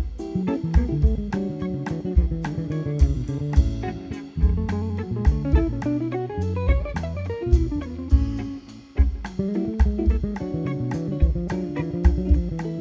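Instrumental band music: guitar playing a melodic line over bass and drum kit, with a quick run of notes that climbs in the middle and then falls back.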